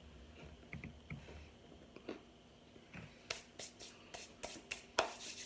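Quiet chewing of powdery toasted cornstarch chunks, then from about three seconds in a quick run of about eight sharp brushing strokes as cornstarch-coated hands are rubbed and dusted together.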